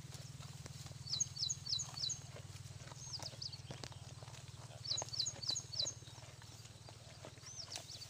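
A bird sings a short phrase of four quick high chirps twice, about a second in and again about five seconds in, with single high calls between. A steady low hum and faint rustling clicks from the goats grazing in tall grass run underneath.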